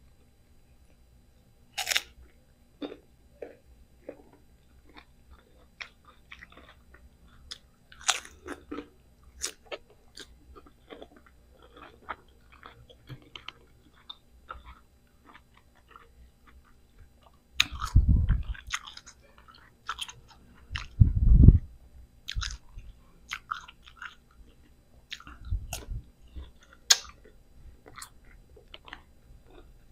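Close-up crunchy biting and chewing of crisp mango slices, with sharp crunches scattered irregularly. A little past halfway come two deep low thumps, the loudest sounds.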